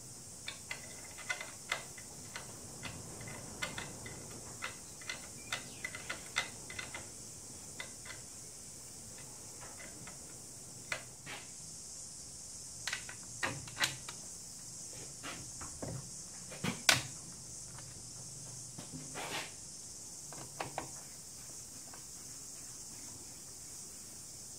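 Small metal clicks and taps of hand tools working a bolt and nut on a steel golf trolley frame: a run of light clicks about two a second over the first seven seconds, then scattered clicks, the sharpest about seventeen seconds in. A steady high hiss sits behind them.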